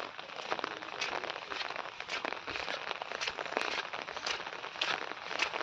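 Heavy rain falling: a dense steady hiss full of many sharp, separate drop hits.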